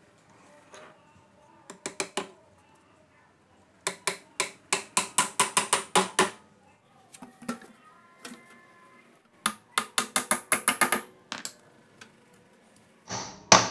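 Small hammer driving small nails into a plywood case's wooden reinforcing strip. A few taps, then two runs of quick, light taps at about five a second.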